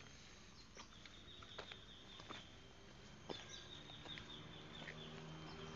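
Quiet outdoor background: faint scattered footsteps and a faint, high, drawn-out call or chirp.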